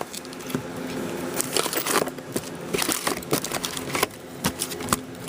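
Trading-card packaging being handled: crinkling and crackling of wrappers and a cardboard box, with many small irregular clicks.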